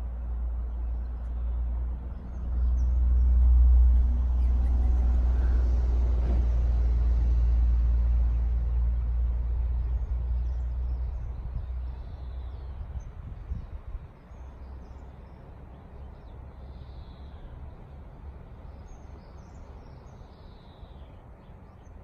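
Low outdoor rumble with a vehicle passing, swelling and fading over the first half. It is quieter after that, with faint scattered high bird chirps.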